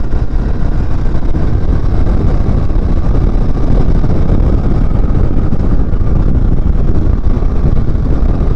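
Royal Enfield Meteor 350 motorcycle being ridden fast, its 349 cc single-cylinder engine running under a steady, heavy rush of wind on the microphone.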